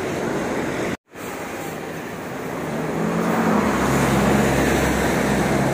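Outdoor traffic noise, cut off abruptly about a second in. Then a tour coach's diesel engine running close by: a low, steady hum that grows louder through the rest of the clip.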